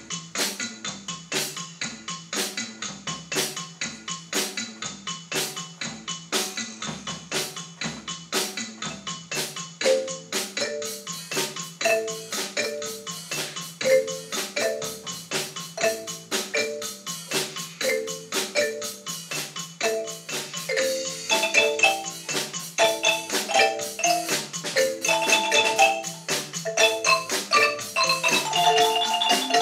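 Several wooden Orff xylophones played together with mallets. A low repeating bass figure starts alone, a middle melody joins about ten seconds in, and more, higher parts layer in around twenty seconds and again near the end.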